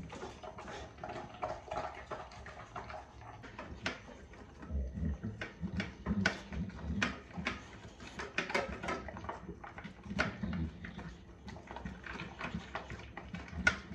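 A boxer-type dog eating boiled chicken from a stainless-steel bowl: irregular wet chewing and gulping, with sharp clicks of teeth and muzzle against the metal bowl.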